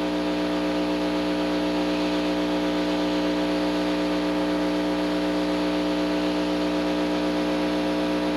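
Heat gun running steadily, a fan-motor hum over a rush of air, heating a solder seal wire connector while the solder inside melts.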